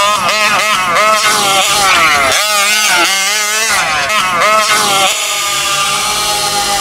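Taylor 46 GT gas engine in an RC truck, revving hard in a quick run of rising and falling throttle bursts. About five seconds in it settles into a steadier high note that sinks slowly.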